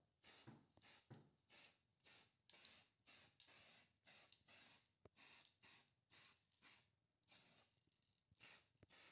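Aerosol spray-paint can hissing in short bursts, about two a second.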